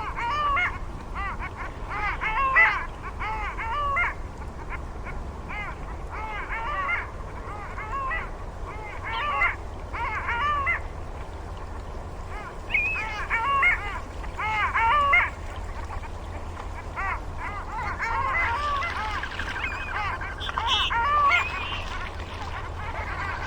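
Waterfowl calling in bouts of short, repeated honking calls every few seconds, with a busier stretch of overlapping calls near the end.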